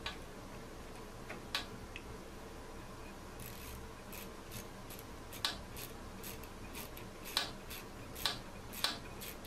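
Socket ratchet clicking as a nut on a scroll saw blade clamp's mounting bolt is snugged up. The clicks are scattered at first, then come quickly from about a third of the way in, a few louder than the rest.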